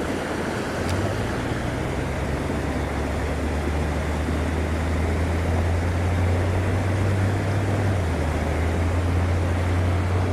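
A steady low motor-like drone over an even rushing noise like flowing water, with a faint click about a second in.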